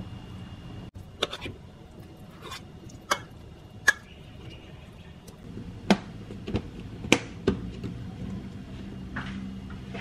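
Kitchen handling: a metal spoon clinks against a bowl as seasoning is spooned onto chicken wings, then a plastic lid is pressed onto the bowl, making a string of sharp clicks and knocks, the loudest about four, six and seven seconds in.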